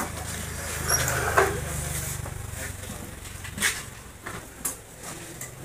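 A few sharp knocks and clanks of tools and a spoked motorcycle wheel being handled on a tiled floor during tyre work, over a low steady hum that fades after about three seconds.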